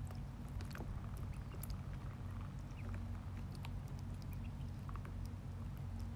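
A brood of ducklings feeding, with scattered small clicks and taps of bills on feed, water and wood shavings. Under it runs a steady low hum.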